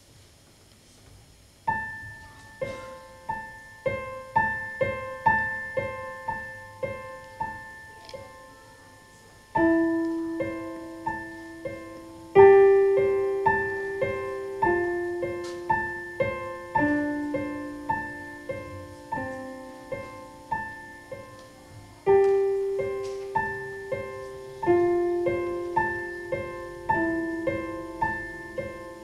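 Casio digital piano playing a slow, gentle piece. Softly repeated high notes begin about two seconds in, deeper held notes join about ten seconds in, and the playing grows louder from about twelve seconds in.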